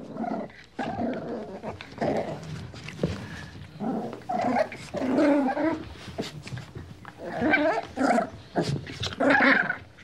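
A pug making a run of short vocal noises, several bursts with brief gaps between them.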